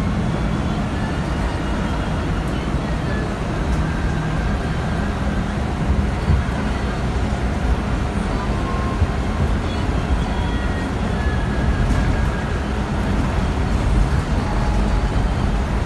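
Steady cabin noise inside a Scania K310 Marcopolo Torino low-entry city bus under way: a low diesel engine drone with road and body rumble, plus a few faint steady whines.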